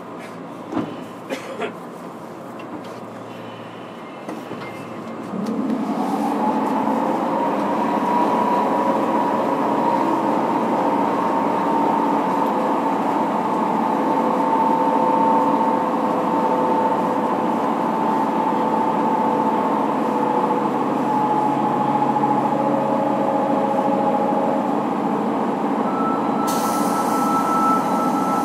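Running sound inside a JR Kyushu 103 series motor car: the MT55 traction motors and gears whine over the rumble of the wheels on the rails. After a few knocks about a second in, the sound grows much louder about five seconds in and then holds steady, with a brief hiss near the end.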